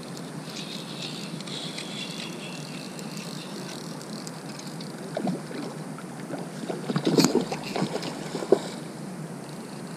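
Steady rush of river water and wind on the microphone, with a few short knocks and scrapes from handling the fly rod and line, clustered around seven seconds in and once more near the end.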